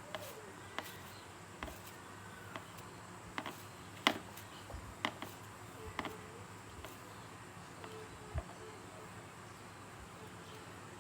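Scattered light clicks and knocks at irregular intervals, the loudest about four seconds in, over a faint steady high-pitched tone.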